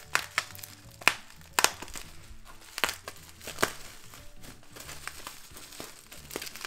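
Plastic bubble wrap crinkling and crackling as it is handled and pulled open by hand, with several sharp crackles, the loudest about a second and a second and a half in. Quiet background music plays underneath.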